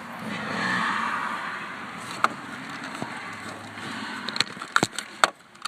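Rustling handling noise, then a few sharp clicks and knocks, bunched near the end, from hands working the pulled-out headlight switch and its wiring in the truck's dash.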